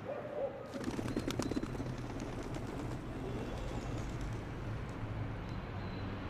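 Outdoor ambience: a short, wavering bird call near the start, then a flurry of rapid clicks about a second in, over a steady low hum.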